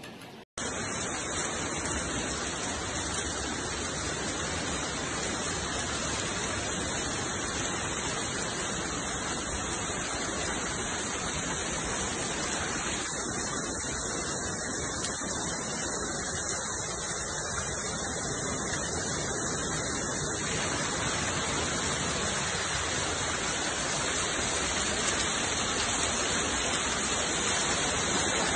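Hailstorm: a steady, dense hiss of hail and rain pouring down, growing a little louder near the end.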